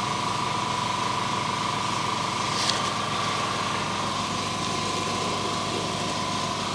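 Steady mechanical drone with a constant high hum, with one light click about two and a half seconds in.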